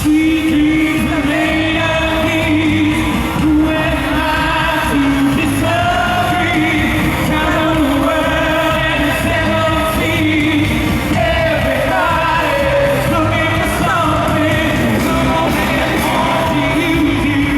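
Live pop concert music in a large arena: a male lead vocal with the band over the PA, with audience members near the recorder shouting and singing along.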